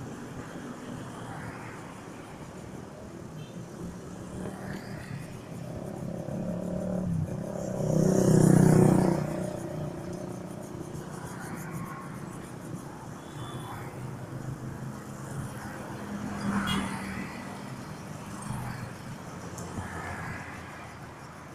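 Street traffic: car and motorcycle engines running as vehicles pass close by, one passing loudest about eight seconds in.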